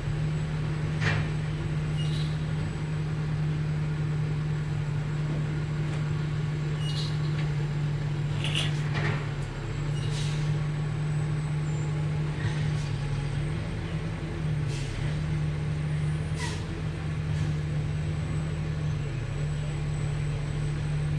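A steady low hum runs throughout, under short, scattered scraping strokes of a spreader wiping body filler over a fender patch.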